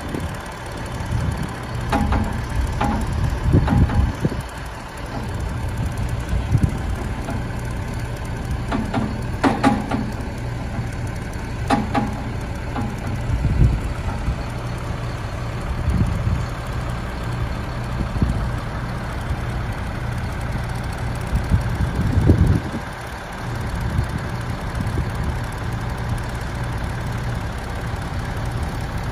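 Ford F750 truck engine running steadily, powering the hydraulics of a truck-mounted boom as it is raised and lowered. A few brief whines come in the first half.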